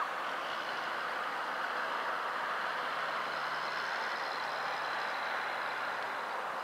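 Distant E751-series electric train running on the line: a steady rushing noise that holds level without rising or falling.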